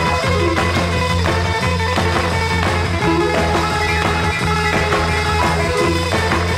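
Background rock music with a steady bass line.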